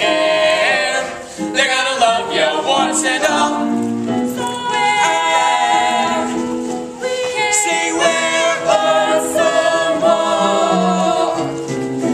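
Voices singing a musical-theatre song with instrumental accompaniment.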